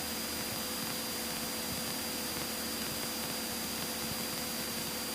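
Steady hiss from the cockpit audio of a Cessna 172K in flight, with two faint constant tones and a low hum underneath.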